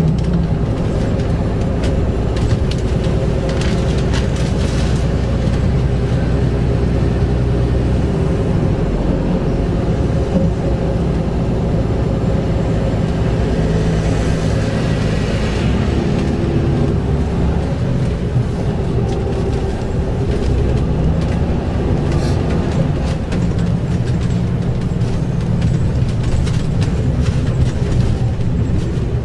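Yutong ZK6118HGE city bus driving along, heard from inside the passenger cabin: a steady engine drone with road noise, its note shifting a few times as the bus changes speed.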